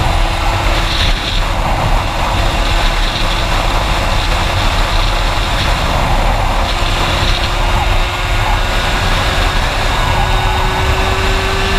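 Aprilia RS 50 with a Minarelli AM6 two-stroke engine and an 86cc aluminium kit, running hard at a steady pitch at road speed, mixed with heavy wind noise on the microphone.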